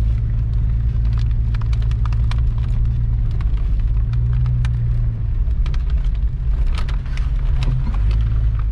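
A vehicle driving on a gravel road, heard inside the cabin: a steady low engine and road drone with many small clicks and rattles throughout.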